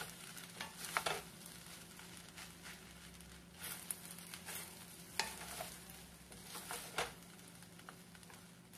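Two wooden spatulas stirring and tossing fried rice in a stainless steel pan, giving scattered scrapes and knocks of wood on metal over a soft frying sizzle.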